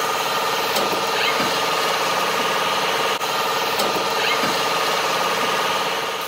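CNC lathe running and turning a mold part: the spindle and chuck spin with coolant spraying, a steady machine hum with a constant whine over a hiss.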